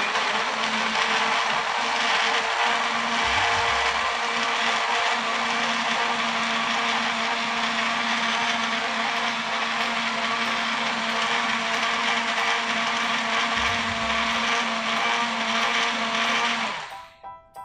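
Countertop blender running steadily, blending fruit and water into a purée. It switches off near the end.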